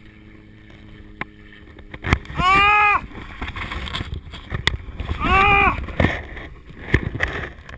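A man crying out in pain: two drawn-out yells a few seconds apart, each rising and then falling in pitch, from a skydiver whose ankle has just been dislocated and fractured on landing. Low wind rumble on the microphone underneath.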